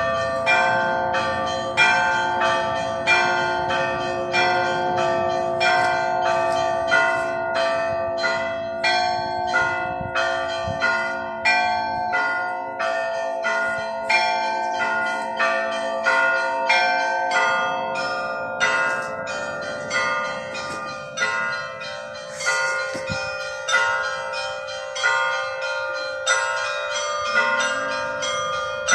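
Church bells ringing: several bells struck in a steady rhythm, about two strokes a second, their tones ringing on under one another.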